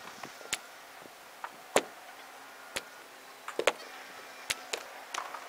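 Sharp clicks of golf clubs striking balls on a driving range, several of them at irregular intervals and at different distances, the loudest one about a second and three quarters in.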